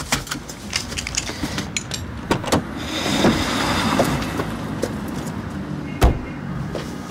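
A passenger getting out of a car: scattered clicks and handling noises, then the car door shuts with one loud thud about six seconds in.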